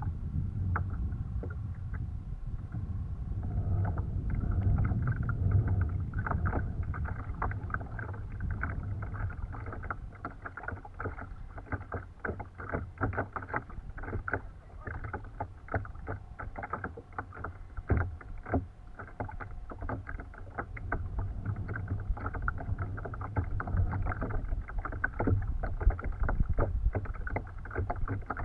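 Choppy water slapping and splashing against the hull of a pedal kayak under way, many small irregular splashes, over a low rumble of wind on the microphone.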